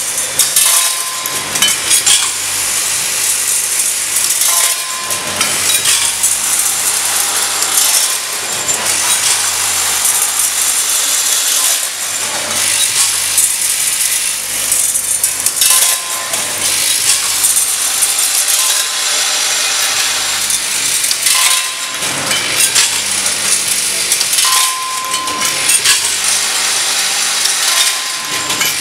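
Vibratory bowl feeders running, the bolts and rubber O-rings in their bowls rattling and chattering continuously over a steady low hum.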